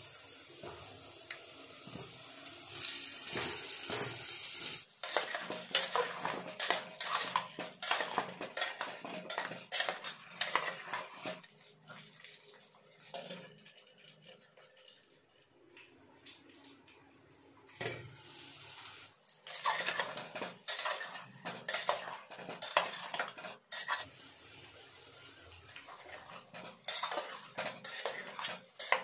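Whole potatoes frying in hot oil in an aluminium pot: a steady sizzle as they go in, then a spatula and lid clattering and scraping against the pot in bursts as the potatoes are turned.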